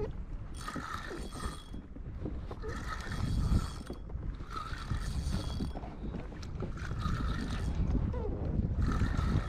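Geared mechanism whirring in bursts about a second long, roughly every two seconds, with steady high tones in each burst.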